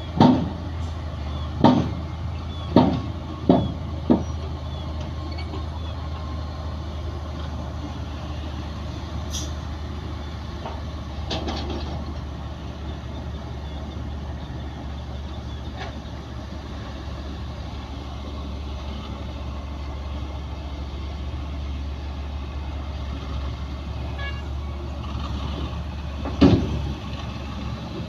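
Heavy diesel earthmoving machinery, bulldozer and dump trucks, running steadily with a low engine drone. A run of loud clanks comes in the first few seconds, and another single clank comes near the end.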